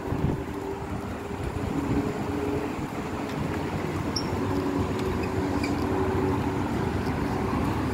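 Steady road traffic noise: a continuous low rumble of vehicles passing on the road below, with faint held tones that come and go.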